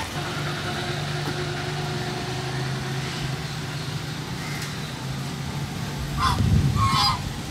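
Domestic geese honking: mostly faint calls, then two loud honks close together near the end, over a steady low hum. The filmer takes the persistent calling for a sign that the geese are hungry.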